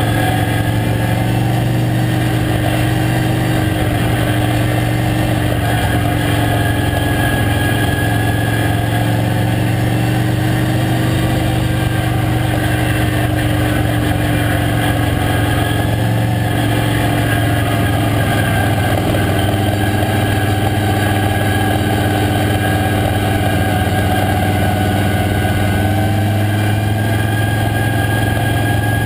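Late model stock car's V8 engine running hard under race load, heard from inside the cockpit. The engine note holds fairly steady, rising and falling only a little.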